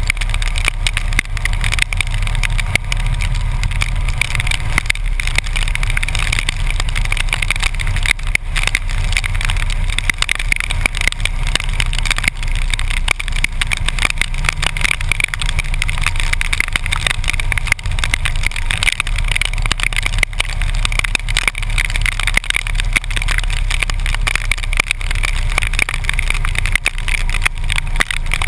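Harley-Davidson motorcycle riding at highway speed in heavy rain: a steady low rumble of engine and wind, with a dense crackle of raindrops and spray striking the camera.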